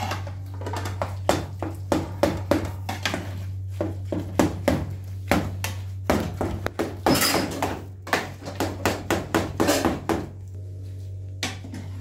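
A long metal spatula knocking and scraping against a metal cooking pot as food is stirred and turned, in quick irregular clatters that stop about ten seconds in. A steady low hum runs underneath.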